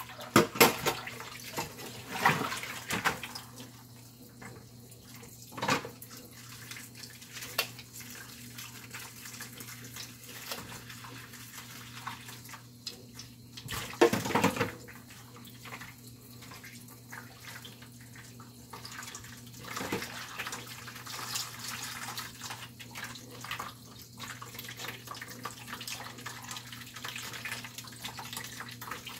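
Kitchen tap running steadily into a stainless steel sink as pieces of salmon head are rinsed under the stream. A few louder splashes and knocks stand out, the strongest about half a second in and around fourteen seconds.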